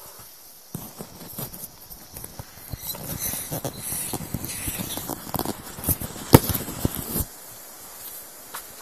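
Hands handling a taut inflatable vinyl boat: irregular rubbing, crackling and clicking of the vinyl, with one sharp snap near the end before it stops suddenly.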